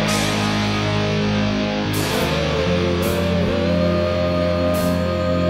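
Heavy rock music: a distorted electric guitar holds a long note that wavers slightly in pitch, over a steady low bass line.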